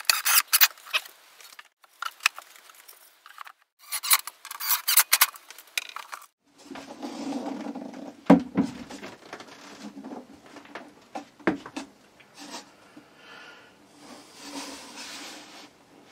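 Cordless DeWalt drill driving screws into a wooden box frame in several short runs during the first five seconds, then wooden knocks and a sharp thump as the assembled panel box is handled.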